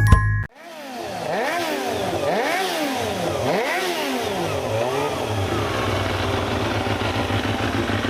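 Kawasaki Ninja ZX-25R's 250 cc inline-four engine revved up and back down about four times in quick succession, then settling to a steady idle.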